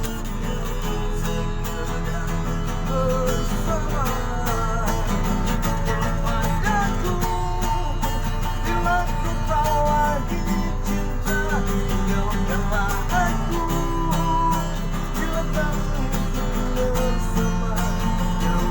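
A street busker singing over acoustic guitar accompaniment, with a steady low electrical hum underneath.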